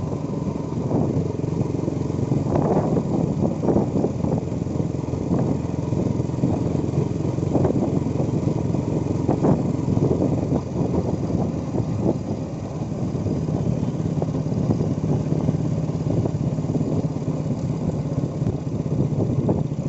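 Motorcycle engine running steadily on the move, heard from a moving motorcycle, with a few brief clatters.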